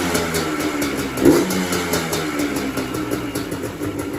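Yamaha Blaster's single-cylinder two-stroke engine running, with a brief rise in revs a little over a second in.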